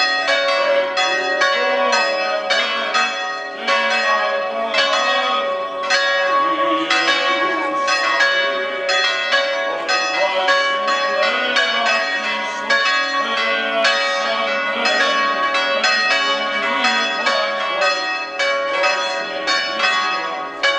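Russian Orthodox church bells ringing a fast, continuous peal of many bells, several strikes a second over the steady hum of a deeper bell.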